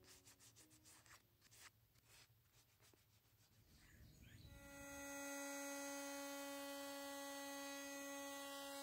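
Sandpaper rubbed by hand over bare wood in faint scratchy strokes. About halfway through, a Black & Decker electric sander starts and runs with a steady high-pitched hum, fitted with 240-grit paper for the final smoothing sand.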